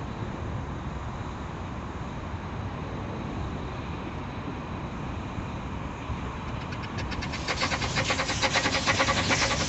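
15-inch gauge miniature railway train running: a steady low rumble, then from about seven seconds in a rapid, even beat of sharp strokes, several a second, growing louder near the end.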